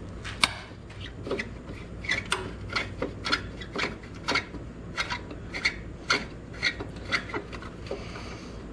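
Irregular light clicks and knocks, about one or two a second, with some rubbing: small parts and hardware being handled and worked by hand.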